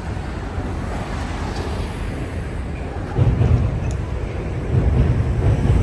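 City street ambience: a steady low rumble of traffic and street noise, which grows louder about three seconds in.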